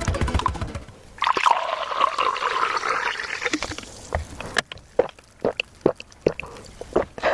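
Close-up eating sounds: a wet, liquid stretch lasting about two and a half seconds, then a series of sharp separate clicks of biting and chewing. Music fades out about a second in.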